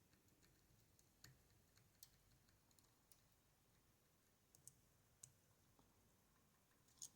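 Faint, scattered clicks of a lock pick probing the pin stacks inside a West 917 high pin count lock, about seven light ticks spread a second or so apart, the clearest near the end.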